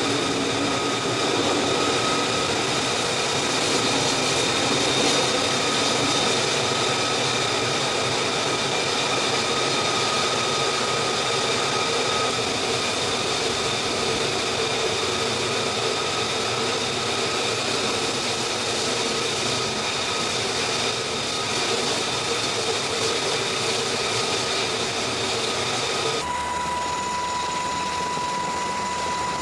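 Steady jet engine noise: a continuous rush with several high whining tones held over it. About 26 seconds in it changes abruptly to a thinner noise with a single steady whine.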